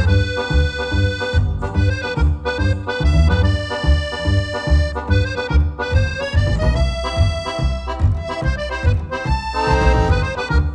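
Background music: a melody of held notes over a steady bass beat.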